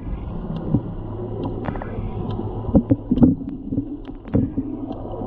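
Sound picked up underwater: a steady low hum of the boat's engine carried through the water, with a wavering drone and scattered knocks and clunks, the loudest clustered about three seconds in.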